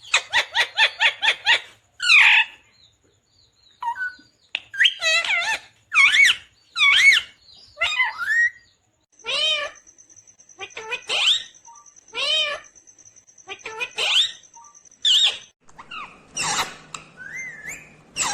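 Rose-ringed (ringneck) parakeet calling: a fast run of sharp chirps at first, then a string of separate squawks, each bending up and down in pitch, about one a second.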